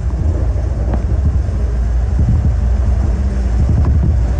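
Automated people-mover train running between stations, heard from inside the car: a steady low rumble, with a faint hum joining in about halfway through.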